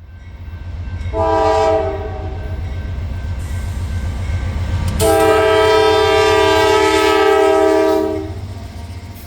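Locomotive air horn sounding a chord: a short blast about a second in, then a long blast of about three seconds starting midway, over the steady low rumble of a passing train.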